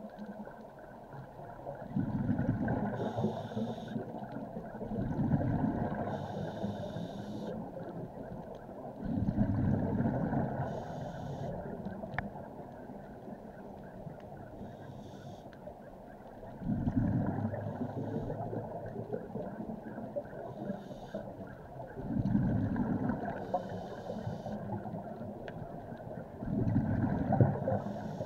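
Scuba diver breathing through a regulator underwater, heard through the camera housing: a low bubbling rumble of exhaled bubbles comes six times, every four to six seconds, with shorter hissing breaths in between, over a steady hiss.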